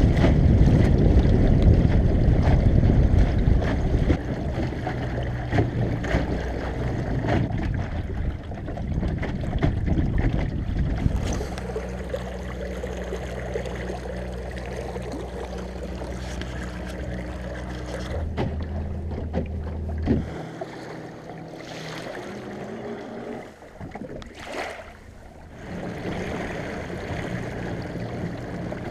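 Small inflatable dinghy under way on an electric trolling motor: water rushing and splashing at the hull, with wind buffeting the microphone, loudest in the first few seconds. Through the middle stretch there is a steady low hum. The sound changes abruptly several times.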